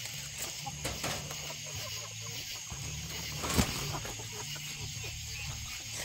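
Chickens on the roost clucking quietly, with one sharp knock about three and a half seconds in.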